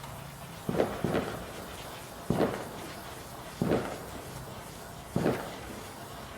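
A lit firework going off in separate sharp pops, about five of them, one every second and a half or so, sputtering rather than burning steadily.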